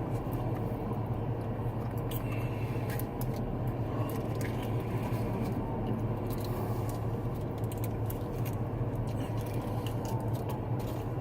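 A person chewing and handling food, with faint small clicks and rustles, over a steady low hum.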